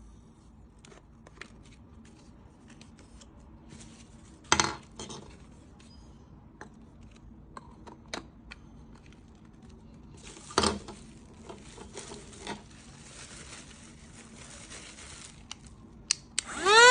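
Scattered light clicks and two louder knocks of a small plastic cordless car vacuum being handled. Near the end its motor switches on with a quickly rising whine that settles into a steady high hum.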